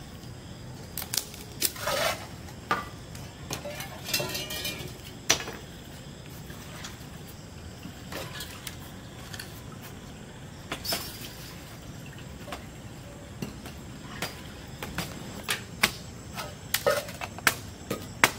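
Steel dishes, bowls and utensils clinking and knocking at irregular intervals, some strikes ringing briefly, over a steady low background.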